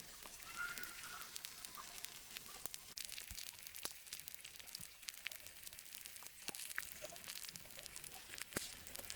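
Pork sizzling on hot stones: a faint, steady hiss with many scattered crackles and pops.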